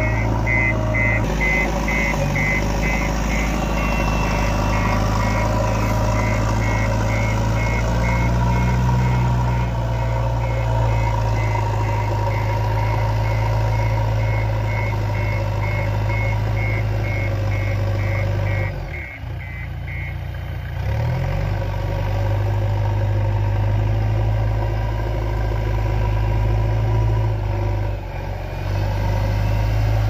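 JCB 3DX backhoe loader's diesel engine running steadily as the machine moves over dirt, with its reversing alarm beeping in a regular series for the first two-thirds. The engine sound dips briefly about two-thirds through, then carries on.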